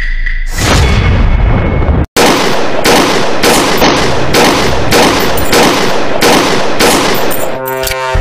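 Gunshot sound effects: a heavy blast, a split-second cut-out about two seconds in, then a steady string of gunshots about two a second.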